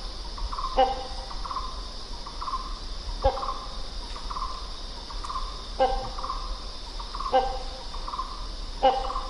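Great hornbill giving loud, short barking calls, five in about nine seconds, between a quicker run of softer repeated notes. A steady high insect drone runs underneath.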